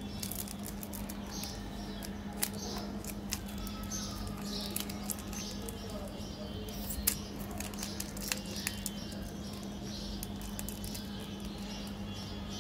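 Plastic wrapper of a jelly candy crinkling and crackling as fingers twist and peel it open, with sharp little clicks throughout; the loudest snaps come about two and a half and seven seconds in. A steady low hum runs underneath.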